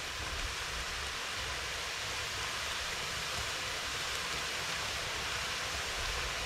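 Hot oil sizzling steadily as boondi batter is pressed through a perforated ladle and drops into it, the gram-flour drops frying on contact. The hiss builds a little toward the end as more batter goes in.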